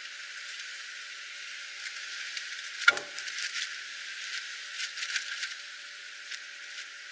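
Light metal clicks and taps of hand tools and small engine parts being handled on the Shovelhead's timing cover area, with one sharper knock about three seconds in.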